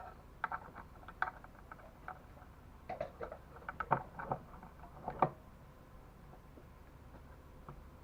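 Light clicks and taps of small metal parts and hand tools being handled, a quick irregular run of them over the first five seconds or so, then they stop, leaving a faint low hum.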